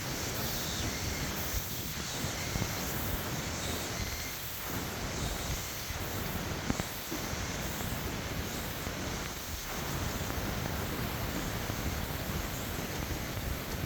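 Steady rain hiss with wind rumbling on the microphone, with a few faint clicks mixed in.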